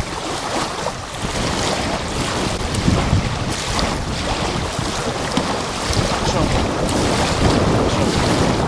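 Wind buffeting the microphone over small waves lapping on a sandy shore.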